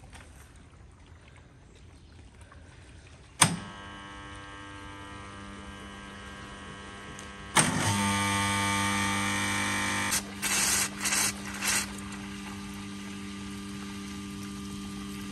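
An electric water pump switched on at its switch box: a sharp click starts a steady electric motor hum, and a second click about four seconds later brings a louder, deeper hum. Near the middle come three short bursts of rushing noise, and the hum runs on.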